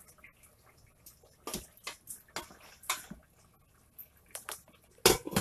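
A plastic spatula clicks and knocks against a stainless steel pot in scattered single strokes. Near the end comes a louder clatter of metal and glass as the pot's glass lid is set on.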